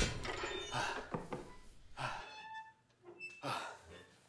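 A man straining through a barbell bench press: a heavy thunk of the bar at the start, then hard, puffing breaths.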